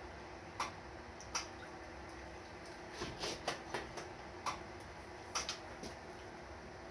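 Scattered sharp clicks and light clinks, about a dozen at uneven spacing and bunched together twice, over a steady low hum.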